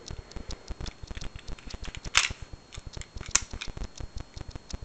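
Small clicks and rattles of WE airsoft 1911 pistol parts being handled and fitted together, a tan slide going onto a black lower frame. Two sharper clicks come about a second apart midway.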